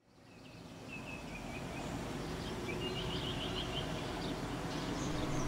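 Outdoor ambience fading in: a steady low background rumble with small birds chirping, including a quick run of repeated chirps about three seconds in.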